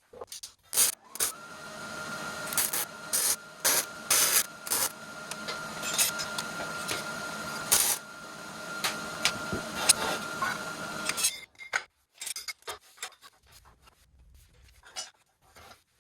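Arc welding on steel: a continuous crackling arc with irregular sharp pops for about ten seconds that cuts off abruptly, followed by a few light metal clicks and clinks.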